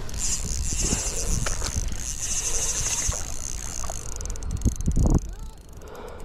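Steady high-pitched buzzing of insects in the summer vegetation, fading about four seconds in, over a low rumble, with a few short knocks and a louder pair of thumps about five seconds in.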